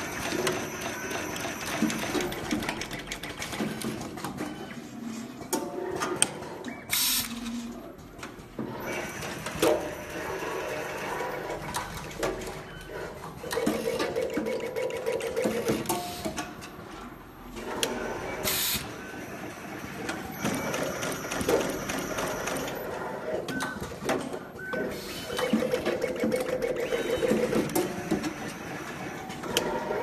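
Automatic multicore cable stripping and double-end crimping machine running through its cycle: continuous mechanical clicking and clattering, with a short hiss about every twelve seconds and a steady motor whine lasting a couple of seconds, twice.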